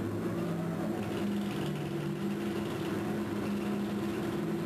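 Machinery of a 35-cubic-yard mining shovel working under load as its dipper digs into the bank: a steady mechanical hum with several low tones that shift up and down in pitch.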